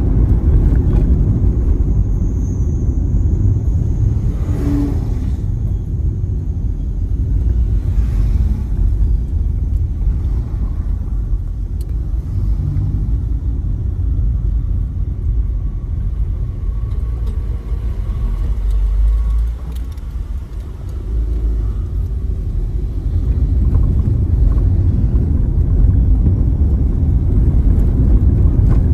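Low, steady rumble of a car driving, its engine and tyres heard from inside the cabin, dipping quieter for a couple of seconds about two-thirds of the way through.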